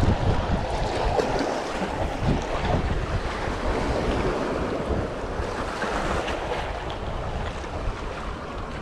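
Surf washing against jetty rocks, with wind buffeting the microphone.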